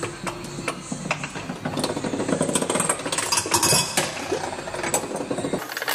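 Hand-cranked wooden sound machine built to imitate crickets chirping: the crank drives a chain-and-sprocket mechanism that sets off a dense, steady clatter of clicks, scrapes and rattles.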